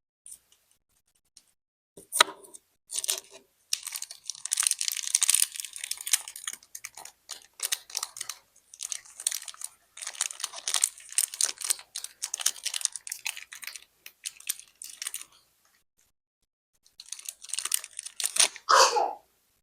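Candy packaging being handled and opened: plastic wrappers crinkle and tear in irregular bursts. It starts with a sharp click about two seconds in, pauses briefly, and ends in a loud burst of tearing near the end.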